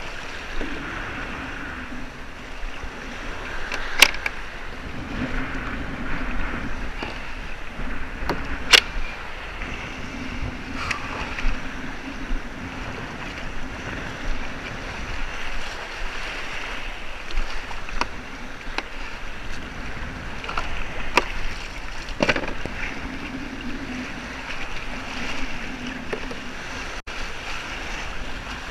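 Choppy waves slapping and sloshing against the plastic hull of a Hobie Revo 13 kayak in rough shallow water, with wind on the microphone. A few sharp knocks come through, about 4 and 9 seconds in and again near 22 seconds.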